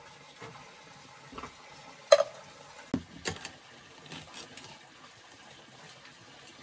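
Hard objects knocking together: one sharp ringing clink about two seconds in, two more knocks about a second later, then a few faint ticks.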